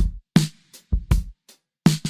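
Music: a bare drum beat of separate kick and snare-like hits with short silences between them, no other instruments.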